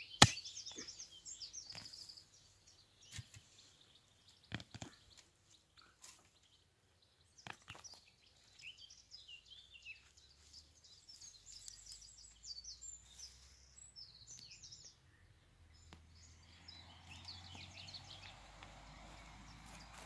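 A short-handled pick strikes dry soil once, sharp and loud, just after the start, grubbing out roots. A few fainter knocks follow over the next several seconds. Small birds chirp and sing throughout.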